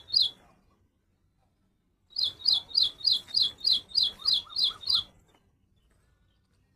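Little woodstar, a tiny hummingbird, chirping: short, high, falling notes repeated at about three a second. One chirp comes right at the start, then a run of about ten starts about two seconds in and stops near five seconds.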